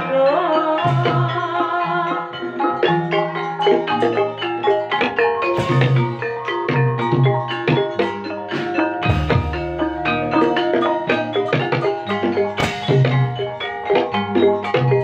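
Javanese gamelan music, as played for an ebeg horse dance: a dense, rhythmic melody of struck mallet instruments over a steady drum and low-note pattern.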